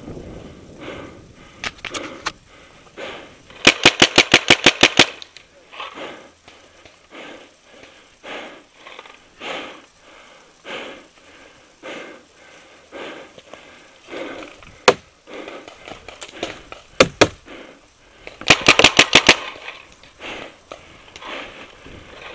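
Paintball marker firing two rapid strings of about eight to ten shots each, a few seconds in and again near the end, with a few single sharp shots between them.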